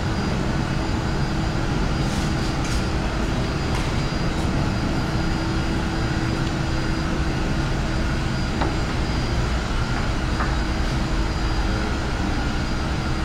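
Steady machine hum over a low rumble, with a constant tone, and a few faint clicks in the first few seconds.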